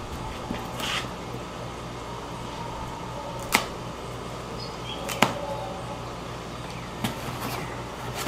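Plastic packing straps being worked off a cardboard box, with a handful of short sharp snaps and scrapes a second or two apart as they come loose and slide over the cardboard. A low steady hum runs underneath.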